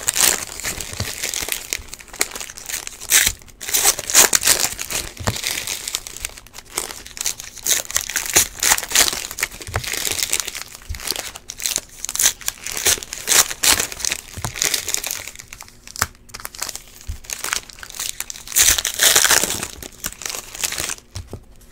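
Trading-card pack wrappers crinkling loudly in repeated bursts as they are torn open and handled.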